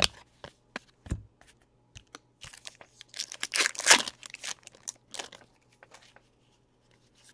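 A trading-card pack wrapper being torn open and crinkled: a crackling rustle about three to five seconds in, after a few light clicks and taps of cards being handled.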